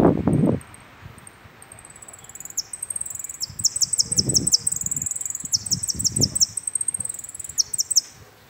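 Saffron finch (jilguero) singing: about two seconds in it starts a run of high, thin phrases built from rapid downward-sweeping notes, and stops shortly before the end. A few low rustling knocks sound underneath, the loudest right at the start.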